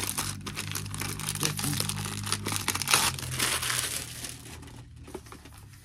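Clear plastic shrink-wrap crinkling and tearing as it is pulled off a perfume box, a dense irregular crackle that dies away near the end.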